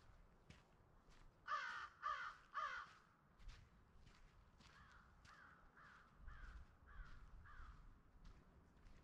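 A crow cawing: three loud, harsh caws close together, then a run of six fainter, falling caws.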